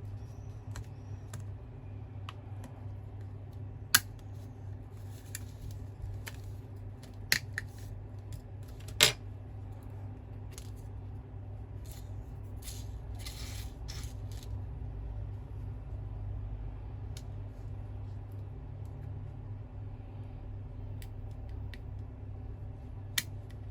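Small tools and phone parts clicking and tapping on a work surface during a smartphone teardown, with three sharp clicks standing out, over a steady low hum.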